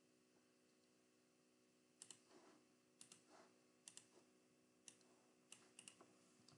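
Faint computer mouse clicks, about ten of them, some in quick pairs, over near-silent room tone.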